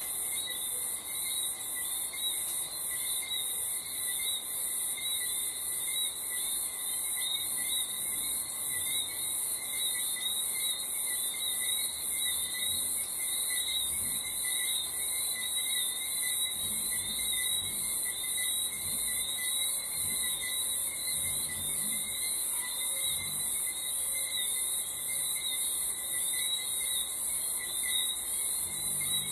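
Crickets chirping in a dense, evenly pulsing high chorus, with fainter steady insect trills lower in pitch beneath it.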